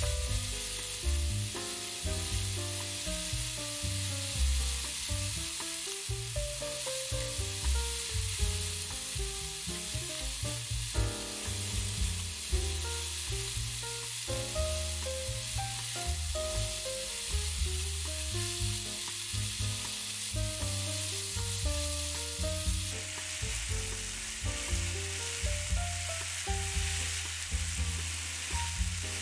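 Zucchini slices and mushrooms sizzling steadily as they fry in a pan, stirred with a spatula near the end. Soft background music plays underneath.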